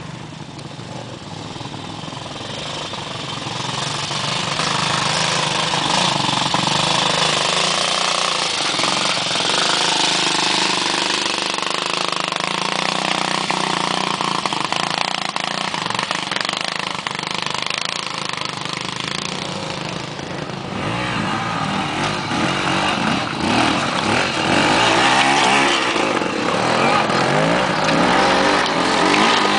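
Trials motorcycle engines running and revving as the bikes climb a rocky slope. The sound builds over the first few seconds, eases off briefly past the middle, and is loudest near the end as one bike comes up close.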